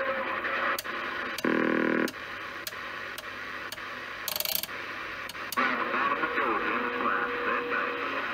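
President Zachary T AM/FM CB radio receiving through its speaker while its channel selector is turned: band noise and static, broken by short clicks as the channels change. A loud buzzing tone comes about a second and a half in, and a steady whistle comes near the end.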